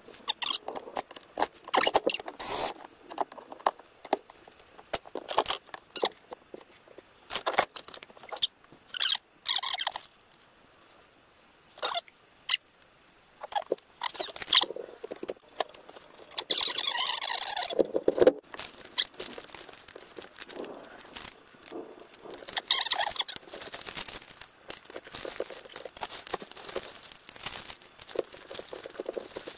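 Hands-on handling noises while a shower curtain is hung on a rod: irregular clicks, knocks and plastic rustling. A little past halfway there is a louder, drawn-out scraping squeak lasting about a second and a half.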